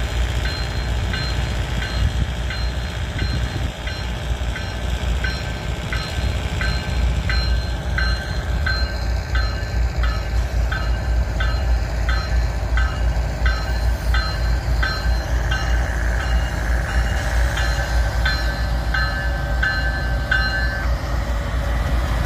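Autorack freight train rolling past and slowing, with a steady low diesel and rail rumble. Over it, a bell rings steadily at a little under two strokes a second and stops near the end.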